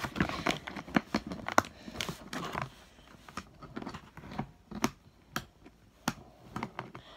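Hands working at plastic toy parts and packaging: a run of sharp clicks with rustling for the first couple of seconds, then scattered single clicks.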